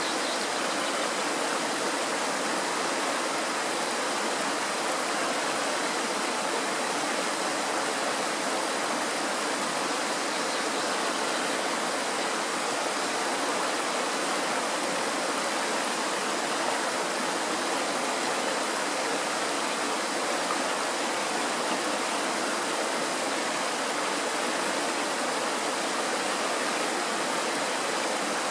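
Fast mountain stream rushing over rocks and through a small cascade of white water, a steady, even rush.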